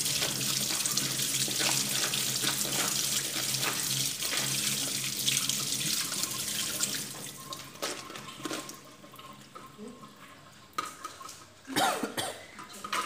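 Kitchen tap running into a stainless-steel sink while sliced vegetables are rinsed in a plastic colander. The water falls away about eight seconds in, followed by a few sharp clacks from the colander being handled near the end.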